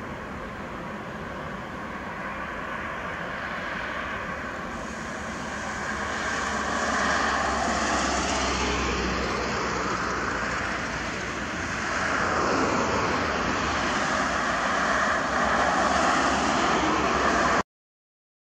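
Airbus A320 jet engines at takeoff thrust during the takeoff roll: a steady rushing jet noise that grows louder as the airliner comes closer, then stops abruptly near the end.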